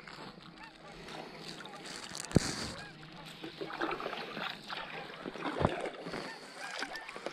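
Kayak paddle strokes: the blades dip and splash, and water drips and trickles off them, with two sharp knocks, one about two and a half seconds in and one near six seconds.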